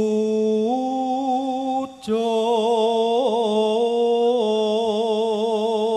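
A man's solo voice chanting a Javanese puji sesanti prayer into a microphone. He holds long drawn-out notes with a wavering vibrato and breaks briefly for breath about two seconds in.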